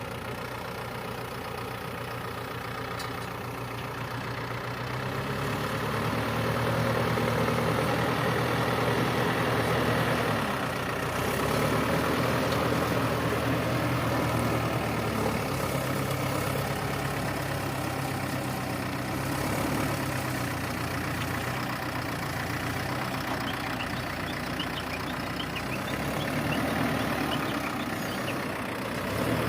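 Diesel engine of a heavy tractor-type machine running steadily. It gets louder about five seconds in, and its pitch and loudness rise and fall a few times after that.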